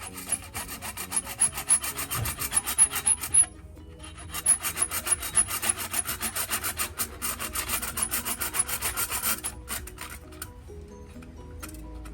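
Quick back-and-forth rasping strokes, like filing or abrading a small metal part by hand, about four to five strokes a second. It stops briefly twice, about three and a half seconds in and again near ten seconds. Soft background music plays underneath.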